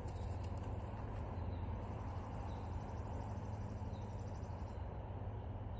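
Steady low background hum with even noise, unchanging throughout, and a faint high chirp or two.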